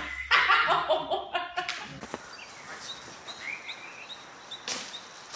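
Pitched vocal sounds, bending up and down, for about the first two seconds. Then light bird chirps over quiet outdoor background, with one sharp knock about four and a half seconds in.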